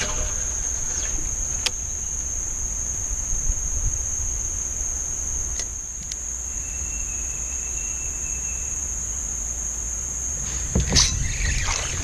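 Steady high-pitched drone of insects in the riverside trees, over a low rumble of wind on the microphone. A few sharp clicks of handling are scattered through it, with a louder knock and rustle near the end.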